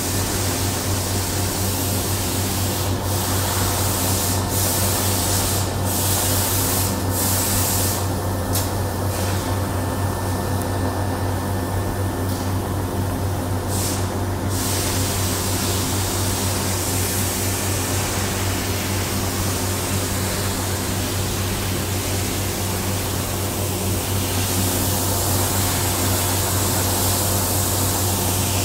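Steady factory-floor machinery and ventilation noise: a constant low hum with a few steady tones over an even airy hiss. The hiss briefly drops away several times around the middle.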